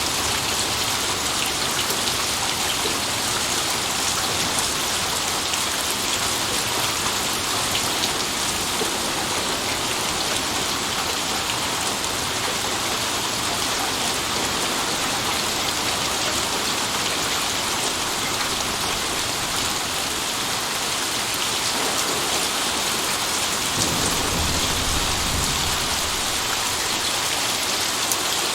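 Steady rain falling and pattering on surfaces. Near the end a low rumble of thunder swells for a couple of seconds.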